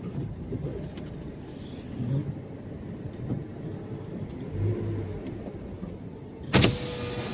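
A car's engine and road rumble, heard from inside the cabin while driving slowly. Near the end comes a sharp knock, followed by a short steady tone.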